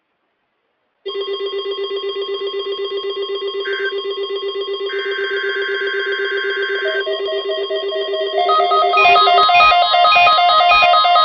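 A 2007 12-262 weather alert radio sounding its alert alarm for the weekly test through its distorted speaker: a rapidly pulsing electronic beep that starts about a second in, with a steady higher tone beneath it. After about eight seconds it turns louder and busier, with several beeping tones at once.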